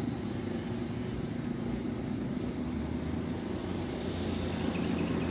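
A motor vehicle's engine running with a steady low hum.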